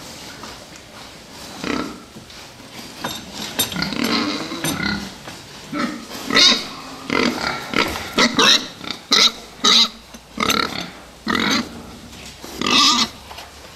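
Several fattening pigs grunting and squealing in short irregular calls, which come thicker and louder in the second half.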